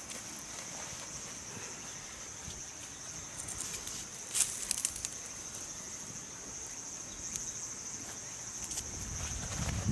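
Insects chirring steadily in a high, even drone. A few sharp clicks stand out about four and a half seconds in, and a low rumble builds near the end.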